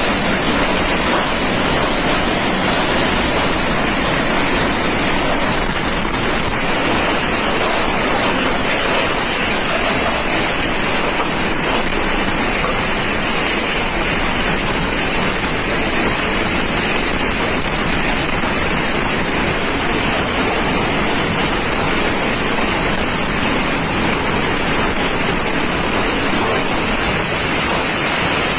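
Hurricane wind and heavy rain: a loud, steady rush of noise that does not let up.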